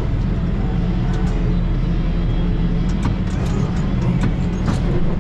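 Case Maxxum 125 tractor's diesel engine running steadily, heard from inside the cab, with a few light clicks about three seconds in and near the end.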